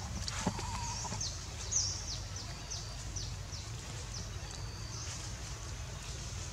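Small birds chirping: short, high notes that fall in pitch, repeated two or three times a second, over a low steady rumble of outdoor background noise.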